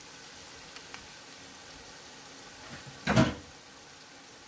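Okra frying in a pot with a steady sizzle, and a single loud metal clank about three seconds in as the pot lid is handled.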